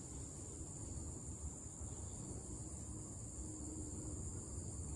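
Steady high-pitched insect chorus droning without a break, over a low rumble.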